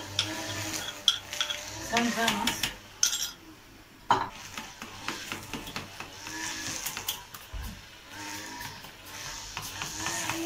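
A spoon scraping crushed garlic out of a clay mortar into a bowl of yogurt, then stirring the garlic into the yogurt, with scattered clinks and knocks of the spoon against mortar and bowl.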